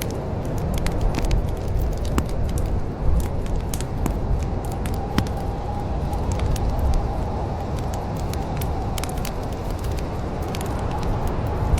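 Wood fire crackling in a fireplace: frequent sharp pops and snaps over a steady low rumble.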